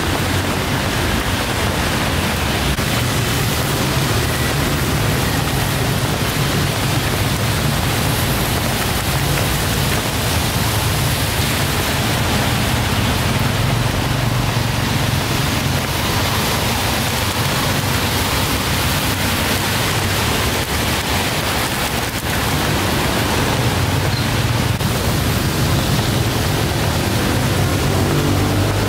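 Steady rushing noise with a low hum underneath, the constant din of a cooking stall.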